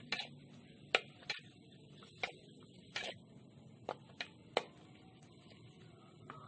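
Metal spoon stirring spice paste in a wok, clicking and scraping against the pan about eight times at irregular intervals over a faint steady hiss.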